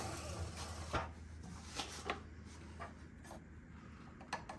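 Scattered small clicks and scraping of hand tools working at a bolt on a miter saw, over a low steady hum.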